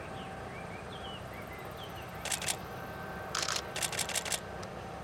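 A single-lens reflex camera's shutter firing in rapid bursts: two clicks a little over two seconds in, then a run of about half a dozen, and another burst starting at the very end. Small birds chirp faintly in the first two seconds over a steady low rumble.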